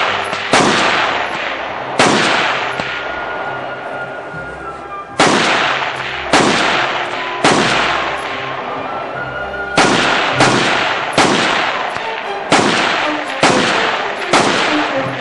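Rifle shots fired one at a time, about eleven of them at uneven gaps of roughly half a second to three seconds, each followed by a long echo. Background music plays underneath.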